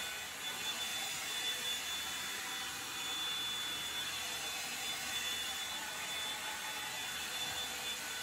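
Revlon One Step hot-air brush dryer running steadily, a blowing air rush with a thin high motor whine, as it is drawn through the hair.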